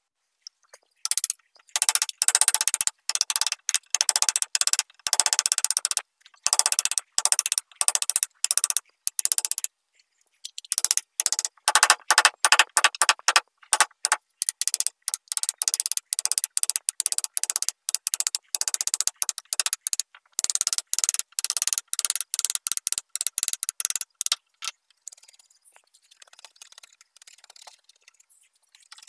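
Hand chisel scraping and gouging along a crack in a wooden tabletop, in runs of quick rasping strokes broken by short pauses. Near the end it gives way to much fainter scraping.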